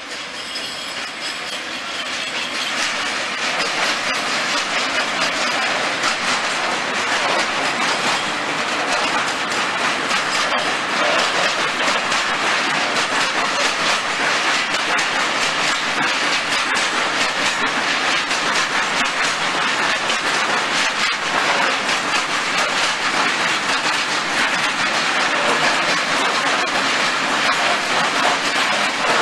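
PKP Class ET22 electric freight locomotive passing, followed by a long train of ZACS tank wagons rolling by, wheels clattering steadily over the rail joints. The sound swells over the first few seconds, then stays loud and steady.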